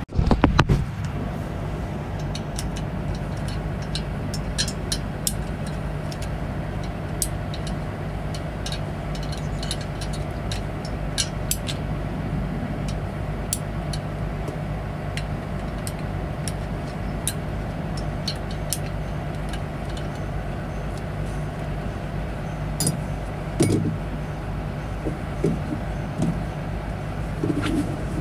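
Steady low engine hum, with scattered light metallic clicks and taps from hand work at a truck's rear wheel hub and spindle. A louder knock comes about half a second in, and a few louder taps come near the end.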